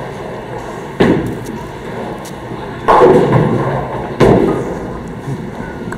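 Bowling alley clatter: three heavy crashes, about a second in, near three seconds and just past four, each dying away slowly, the sound of bowling balls and pins crashing on the lanes.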